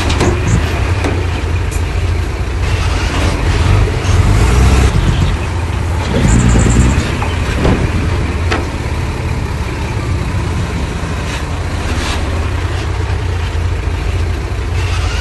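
Heavy diesel earthmoving machinery running, a steady low engine rumble that swells louder about four and six seconds in, with scattered knocks and a brief high squeal about six and a half seconds in.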